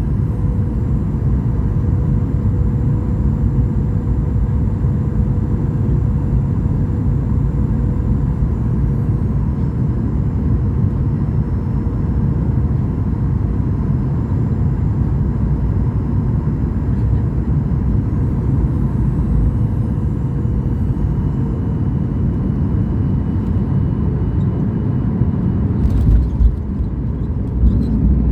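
Boeing 737 cabin noise on the landing approach: a steady, loud rumble of engines and airflow with faint whining tones that shift in pitch twice as thrust changes. A brief sharp knock comes near the end, followed by a heavier low rumble.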